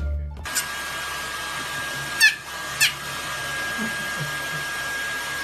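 A hair dryer blows steadily with a thin whine. A small white fluffy dog gives two short, sharp, high yips, about two and three seconds in.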